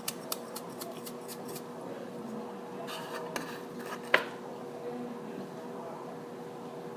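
Small kitchen clicking and clinking as salt is added to the baking-soda mixture: a quick, even run of clicks that stops about a second and a half in, then some rustling and one sharp clink about four seconds in.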